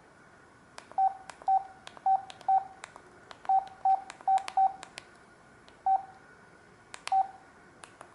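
Samsung SGH-D780 mobile phone keypad: about ten short key beeps, all at the same pitch, at an uneven pace as keys are pressed. Each beep comes with a sharp key click, and a few more clicks come without a beep.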